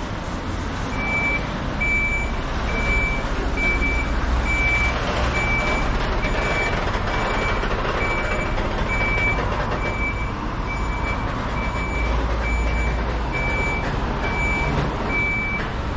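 A truck's reversing alarm beeping, a single high tone repeating about once a second from about a second in, over a running truck engine and road traffic.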